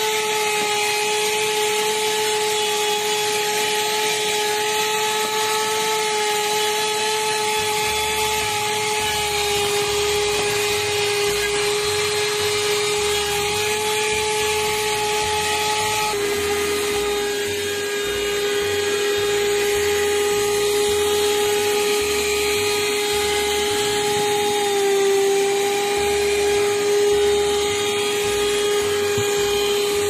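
Krisbow portable car vacuum cleaner running steadily, its small motor giving a constant high whine as the nozzle sucks up dust from the floor carpet. The pitch jumps slightly about halfway through and dips briefly near the end.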